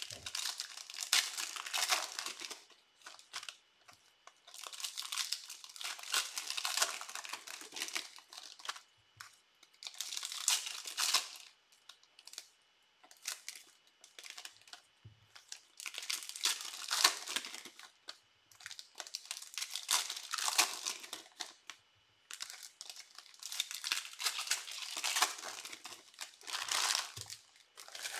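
Trading-card pack wrappers being torn open and crinkled, in repeated crackly bursts a few seconds apart with short pauses between.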